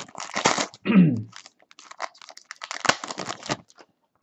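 Foil wrapper of a Panini Prizm basketball card pack crinkling as it is torn open and handled, in two stretches of rustling, with a short falling grunt of voice about a second in.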